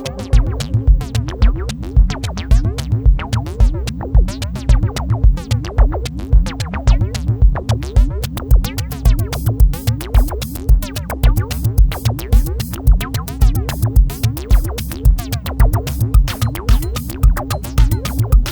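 Electronic background music with a fast, steady drum-machine beat and synthesizer.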